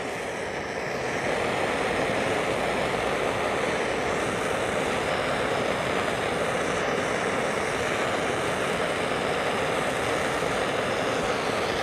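Heat gun blowing steadily while shrinking heat-shrink tubing over a cracked vacuum hose, its rushing noise building slightly about a second in.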